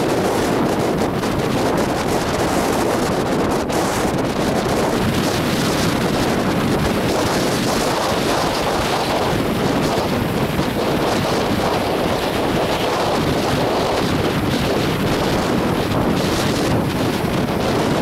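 Strong, gusty wind blowing across the microphone as a steady, loud rushing noise, with the wash of wind-whipped surf mixed in.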